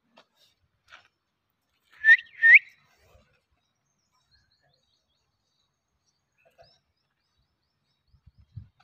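Two short whistled notes about half a second apart, each sweeping sharply upward, like a bird call, about two seconds in; a few faint scuffs come before them.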